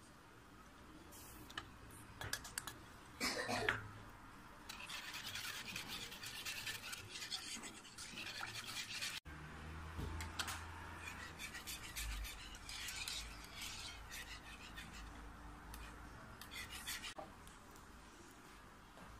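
A wire whisk beating milk in a saucepan: fast, scratchy swishing in two long spells, after a few short knocks against the pan at the start.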